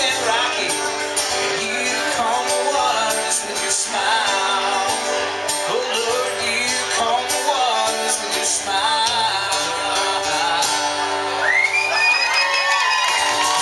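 Acoustic guitars strumming and picking the instrumental outro of a country song, played live. A shout rises over the music near the end.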